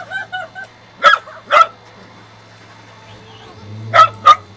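Long-haired dachshund giving a few short whines, then barking sharply four times in two pairs, about a second in and again near the end.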